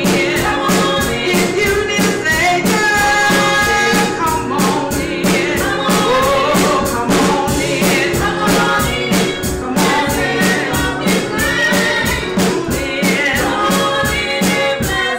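Gospel song: voices singing over a band with a steady drum beat.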